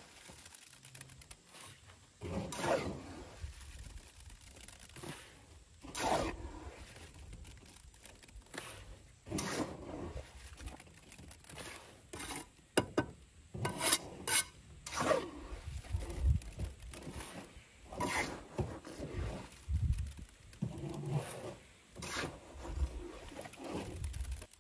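A steel trowel repeatedly scooping wet, gravelly concrete from a mortar tub and scraping it into the hollow cells of a concrete-block wall: rough scrapes every few seconds, with a run of sharp clicks and taps a little past halfway.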